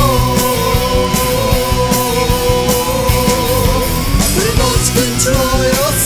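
Progressive rock music: a steady drum beat under a long held lead note that bends upward near the end.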